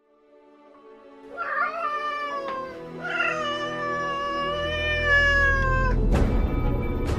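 A cat meowing twice, a short meow and then a long drawn-out one that slowly falls in pitch, over music that fades in and swells. Heavy booming hits come near the end.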